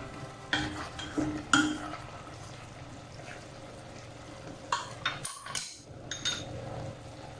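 Cooking utensil stirring in a pot, with a few short clinks and knocks against the pan, a cluster early on and a few more near the end.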